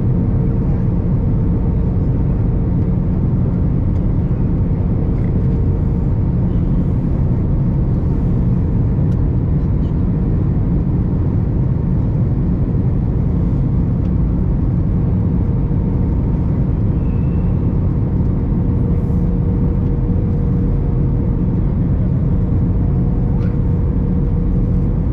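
Steady cabin noise inside an Airbus A321 airliner: a constant low rumble of engines and airflow, with a faint steady hum in the middle of the range.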